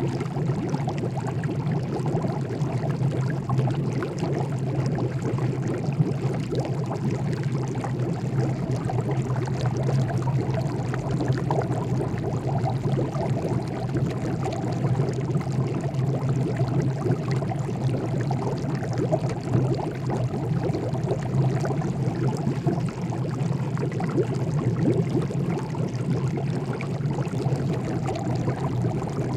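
Water boiling, bubbling densely and steadily throughout, with a steady low hum underneath.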